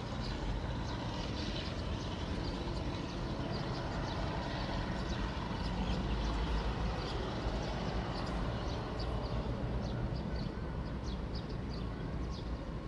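Diesel-hauled passenger train running along the track, a steady rumble of wheels and engine, with short high chirps scattered through.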